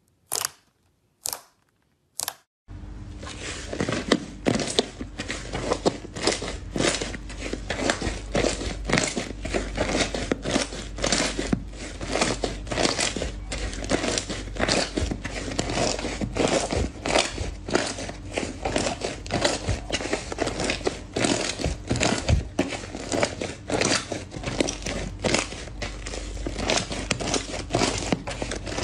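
Hands squeezing and kneading thick slime: air pockets popping and crackling. In the first couple of seconds there are a few separate pops, then the popping becomes dense and continuous, with many crackles a second, over a steady low hum.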